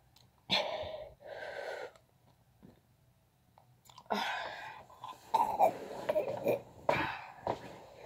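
A boy's breathy, wordless vocal noises: two quick blows of breath just after the start, then a longer run of breaths and grunts from about four seconds in. They are his reaction to the extreme sourness of the candy in his mouth.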